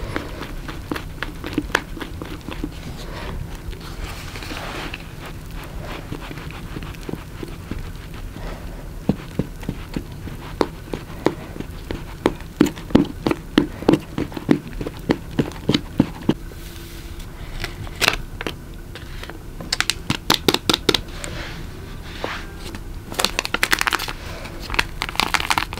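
Cake-making sounds: a run of short knocks and clicks from utensils and a bowl, most regular in the middle, then crinkling and tearing of a paper baking-powder packet in the last few seconds.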